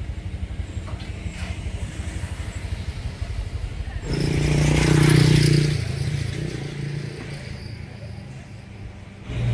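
Street traffic: a low, steadily pulsing engine, then a motor vehicle passing close by about four seconds in, loudest a second later and fading away.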